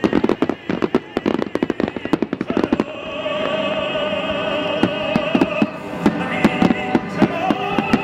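Fireworks bursting in a rapid, dense barrage, then about three seconds in music with a held, operatic singing voice comes up, with fewer firework bangs going off over it.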